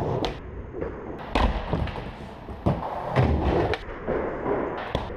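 Skateboard rolling on a ramp with a rumble of wheels, broken by several sharp clacks and thuds as the board and trucks hit the ramp during a frontside flip attempt.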